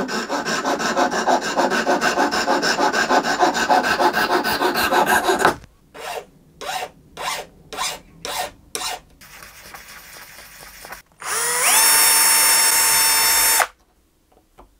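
Fine-tooth saw cutting through the end of a wooden violin peg in rapid strokes for about five seconds. Then come about seven short file strokes trimming the cut end. Near the end a small power drill spins up with a rising whine and runs steadily while it drills the string hole through the peg.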